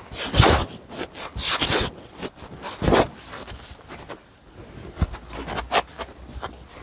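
Clothing rustling and scraping in several short bursts as a person shifts about, with a sharp click about five seconds in.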